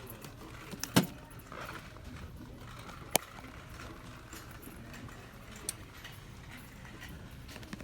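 Two sharp clicks over steady shop background noise: a loud one about a second in, another about three seconds in, and a fainter one near the end.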